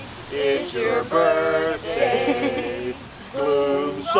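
Several people singing together without clear accompaniment, a man's voice leading and other voices joining in on long held notes, with short breaths between phrases.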